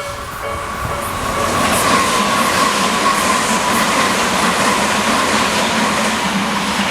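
A Tobu 100 series Spacia electric limited express passes over the level crossing, a loud steady rush of wheel and motor noise with a held hum and some rail clatter. The crossing's electronic warning bell rings for about the first second, then is drowned out by the train.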